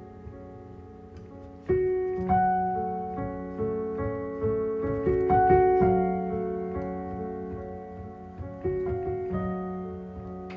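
Background piano music: slow chords struck and left to ring and fade, with a new chord every second or two.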